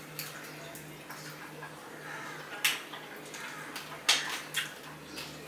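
Eating by hand from steel plates: chewing and mouth noises, with fingers working rice and fish curry on the plate. Three sharp clicks in the second half are the loudest sounds, over a faint steady hum.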